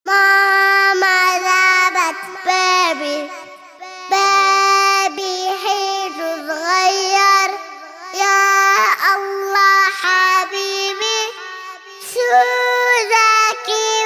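A child singing a children's song in a high voice, holding and gliding between notes over light musical backing.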